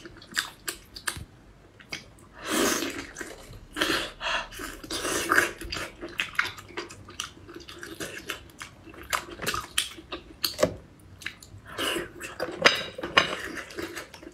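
Close-miked eating of cooked sea snails: wet chewing and slurping, with many sharp clicks of shells being handled and picked at. Longer wet slurps come about two and a half seconds in, again from about four to five and a half seconds, and near the end.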